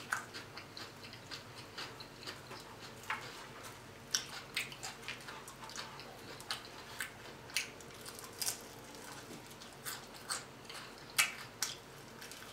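Close-up mouth sounds of a person eating baked chicken wings: irregular chewing smacks and clicks, with a bite into a wing near the end.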